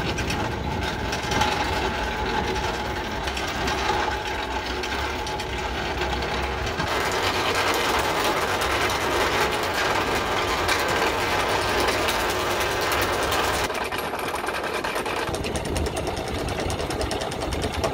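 Anchor chain paying out over the bow roller, a rapid steady clatter of chain links that grows denser from about seven seconds in.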